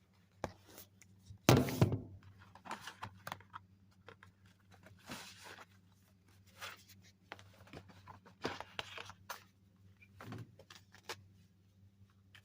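A heavy thump about one and a half seconds in, then scattered rustling and light knocks of things being handled, over a faint steady low hum.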